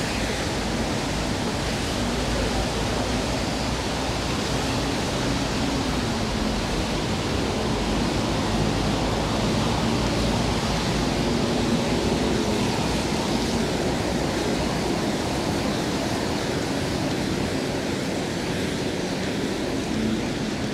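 Steady rushing noise of rain and traffic on a wet city street, with a faint low engine hum underneath.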